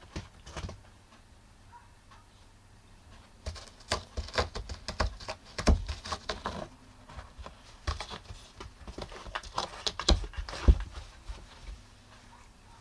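A cat clawing and scrabbling at a rough textured floor mat, a burst of rough scratching and rustling about 3 seconds in and again after 8 seconds. The cat is worked up by silvervine (matatabi).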